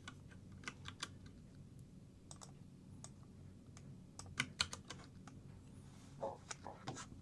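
Faint, scattered clicks of a computer keyboard and mouse, coming in small clusters of a few keystrokes with pauses between.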